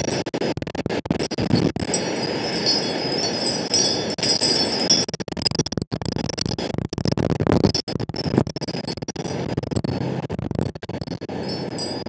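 Strong wind rushing and buffeting the microphone, with high ringing tones sounding over it, loudest in the middle, and frequent short clicks of a house finch pecking at sunflower seeds on the feeder tray.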